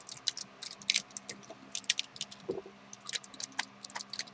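Irregular plastic clicks and rattles of hands squeezing and working the squeeze-action mechanism of a 1996 Kenner Beast Wars Megatron action figure. The mechanism is stiff and fails to open and close its body part, which the owner puts down to these figures clogging up with age.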